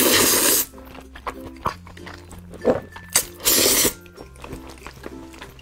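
A person slurping a mouthful of noodles, loudly, twice: once at the start and again about three and a half seconds in, each slurp lasting about half a second. Background music with a steady beat plays underneath.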